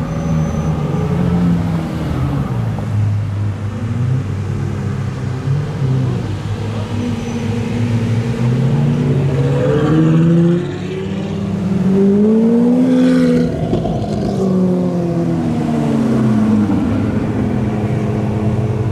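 Supercar engines revving and accelerating, more than one running at once, their pitch climbing and falling several times.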